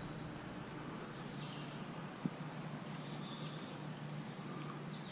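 Quiet outdoor background with faint, high bird chirps and one small click just over two seconds in.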